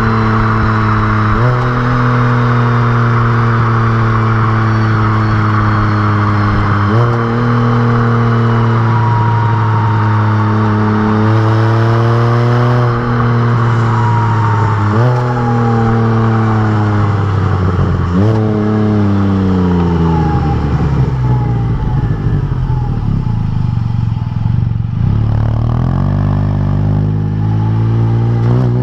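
Can-Am Spyder RT's Rotax 1330 three-cylinder engine running through RLS Exhaust Crusher mufflers on the road. Its pitch jumps up at several gear changes and sinks slowly between them as the trike slows, then climbs again near the end as it accelerates.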